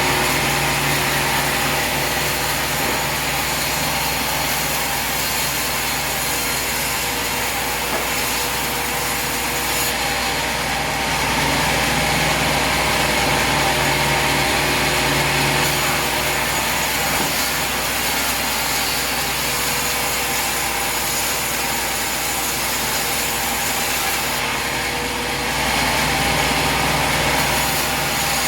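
Sawmill running and sawing through a log: a steady blade-in-wood noise over the hum of the mill's machinery, growing a little louder twice.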